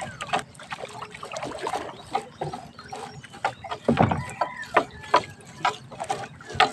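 Wet fishing net hauled by hand over the side of a wooden outrigger boat: irregular clicks, knocks and rustling as the net drags and bumps against the hull.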